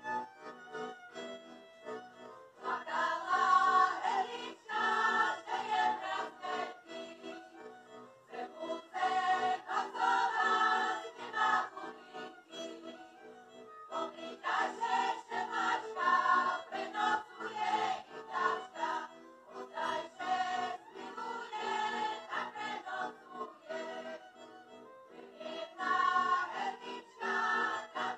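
Slovak folk song sung by a group of voices in chorus, accompanied by a folk band of violins, accordion and double bass, in repeated phrases that swell and ease off every few seconds.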